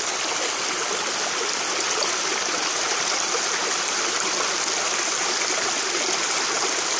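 Small rocky mountain creek running over stones, a steady, even trickle and rush of water.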